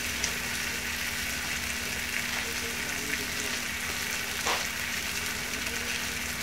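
Browned beef liver sizzling softly and steadily in a nonstick skillet over very low heat, with a faint steady hum underneath.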